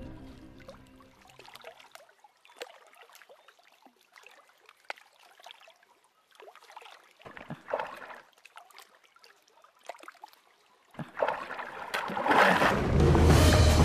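Faint, scattered splashes and trickles of shallow pond water, with a louder splash about eight seconds in. Music swells back in over the last few seconds.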